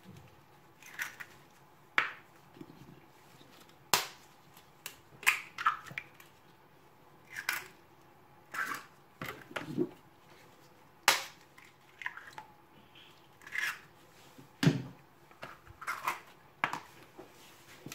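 Eggs cracked on the rim of a mixing bowl and dropped in: a scatter of short, sharp cracks, taps and knocks with quiet gaps between.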